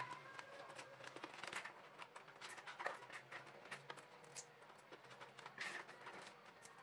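Faint, scattered clicks and rustles of garlic cloves being pushed by hand into a plastic water bottle, their papery skins and the plastic crinkling.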